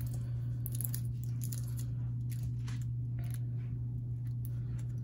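Scattered scratchy rustles and small clicks of heat-resistant tape being peeled off a metal pendant by a gloved hand, over a steady low electrical hum.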